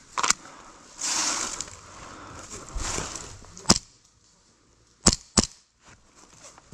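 Airsoft replica firing single shots: four sharp cracks, the last two close together about five seconds in, between stretches of rustling movement.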